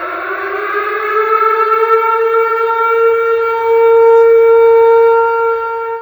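Tornado warning siren winding up: its wail rises in pitch over the first couple of seconds, then holds one steady tone, growing loudest a little past the middle.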